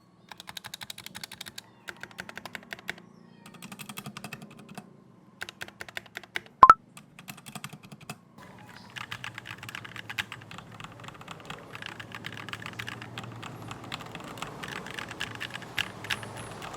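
Typing on the Ajazz K870T mechanical keyboard with linear red switches. Short bursts of keystrokes with pauses give way to continuous fast typing from about eight seconds in. A single loud pop sounds about seven seconds in.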